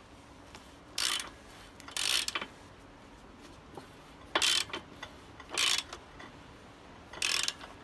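Ratcheting torque wrench working the rear axle nut of a motorcycle: five short bursts of ratchet clicking at uneven intervals.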